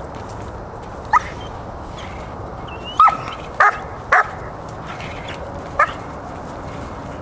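Six-month-old puppy barking five short, high-pitched barks at a helper's waved burlap tug during protection training.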